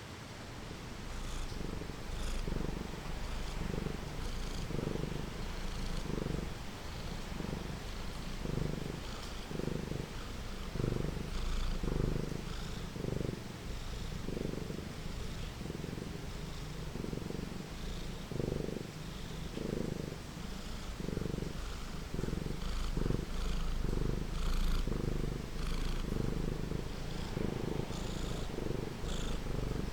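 Domestic cat purring, the low purr swelling and fading with each breath, about one to two pulses a second, starting about a second in. A steady hiss of rain runs underneath.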